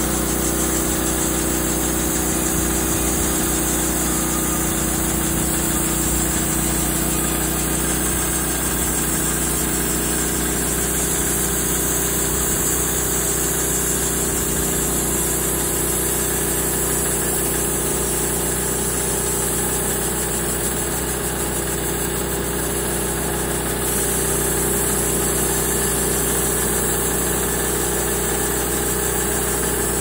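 Norwood HD38 portable band sawmill's small gasoline engine running steadily under load as its band blade cuts lengthwise through a maple log.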